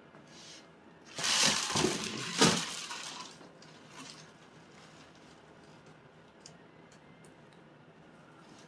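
Packaging crinkling and rustling as boots are pulled out and handled. It comes as a loud burst about two seconds long, starting about a second in, with a few sharper crackles, followed by a couple of faint handling ticks.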